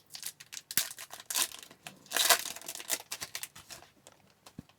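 Wrapper of an Upper Deck hockey card pack being torn open by hand, crinkling in quick bursts that are loudest about two seconds in, with a single sharp click near the end.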